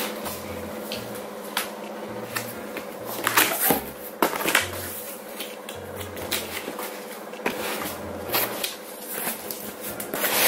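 Cardboard box being opened by hand: flaps and card inserts scraping, rustling and knocking, with several sharp handling noises, the loudest a little past three seconds in and around four and a half seconds. Soft background music with a low bass line runs underneath.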